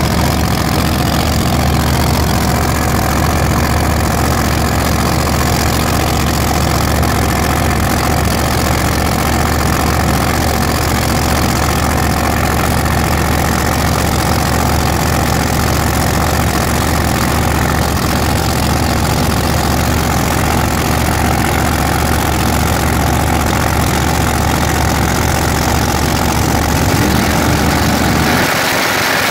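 Drag-racing Chevrolet Nova's engine idling loudly and steadily on the starting line. A little before the end the deep rumble drops away and the note turns higher.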